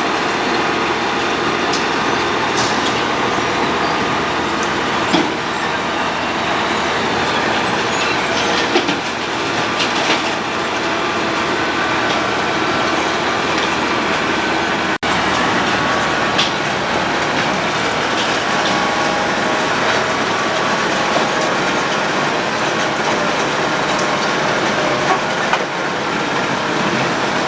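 Road planing machine milling the asphalt surface: a loud, steady grinding din of its engine and cutting drum, with scattered sharp knocks and clicks.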